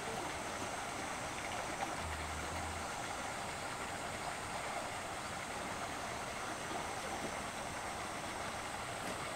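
Steady rushing noise of running water, with no distinct events; a brief low hum about two seconds in.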